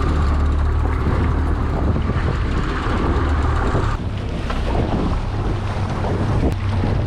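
A fishing boat under way at trolling speed: a steady low engine hum under wind buffeting the microphone and water rushing along the hull. The hiss eases somewhat about four seconds in.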